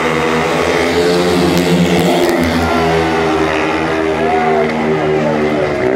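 Speedway motorcycles racing flat out in a pack, their single-cylinder methanol engines running loud at high revs, the engine note wavering up and down as the riders throttle through the bend.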